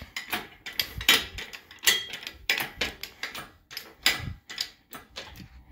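Engine hoist's hydraulic jack being pumped by hand to lift a hanging engine: a run of irregular metallic clicks and clanks, a few a second.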